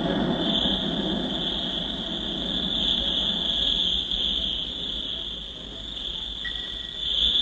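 Stylised cartoon sound effects: a steady high-pitched insect-like drone over a hissing rumble that fades away during the first few seconds, with one short high beep near the end.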